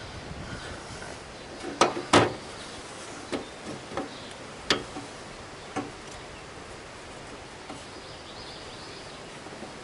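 Several sharp knocks and clicks, the two loudest about two seconds in and the rest spaced over the next few seconds, from hand tools and plastic mower-hood parts being handled, then only a steady low background.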